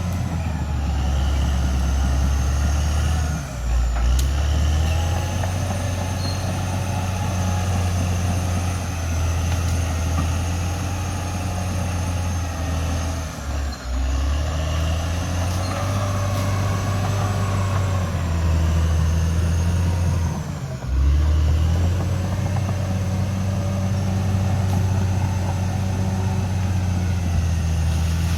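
CAT D6R XL bulldozer's diesel engine running under load. Its note sags and picks back up three times, about 3 s, 14 s and 21 s in, with a faint high whine over the top.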